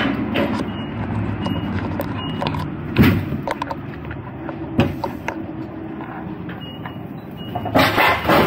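Manual pallet jack carrying a loaded pallet, rolling across a trailer floor: a steady low rumble broken by a few knocks, the loudest about three seconds in, growing louder near the end.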